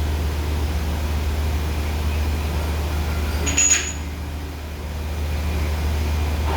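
Metal lathe running with a steady low hum. About halfway through comes one short, sharp, high metallic ring or squeal.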